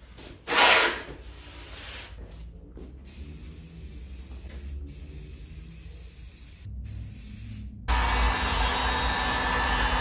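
A brief hiss about half a second in, then from about eight seconds a handheld heat gun's fan blowing steadily with a low hum.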